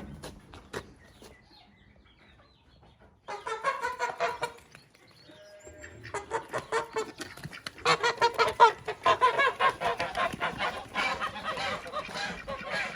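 A flock of chickens clucking, a dense run of quick, overlapping calls that starts about three seconds in, breaks off briefly, then builds again and carries on louder.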